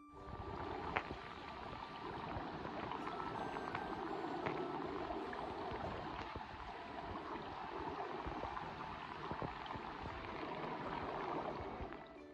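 Stream water flowing over rocks, picked up by a camera under the water: a steady, muffled bubbling rush with a few small clicks.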